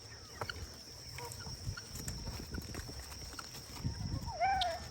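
Farm animals feeding on a pile of pulled grass: low rustling and small clicks of grass being pulled and chewed, with faint chirps and one short animal call near the end.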